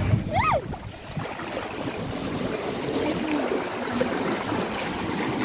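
Surf washing up on a sandy beach, a steady rush of breaking water. A brief high-pitched voice rises and falls about half a second in, with faint voices after.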